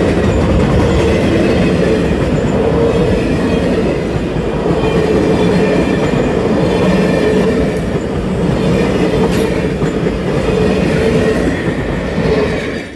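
Union Pacific steam excursion train's passenger cars rolling past close by: a steady, loud rumble of steel wheels on the rails. It cuts off suddenly at the very end.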